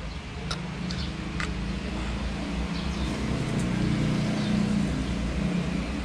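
Low, steady engine hum, as of a motor vehicle running nearby, swelling gradually, with a few faint clicks.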